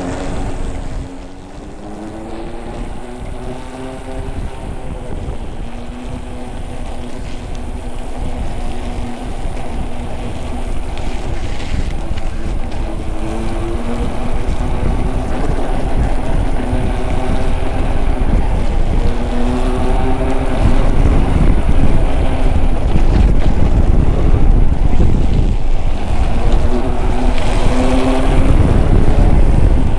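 Nosfet Aero electric unicycle riding on a 3.5-10 knobby tyre. The hub motor's whine rises in pitch and levels off several times as it accelerates, over a low tyre rumble and wind noise on the microphone that grow louder as speed builds.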